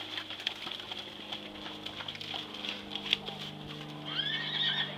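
Open-air horse show arena ambience as horses walk: scattered light knocks over a steady high buzz and a low hum, with a brief high-pitched call near the end that rises and then holds.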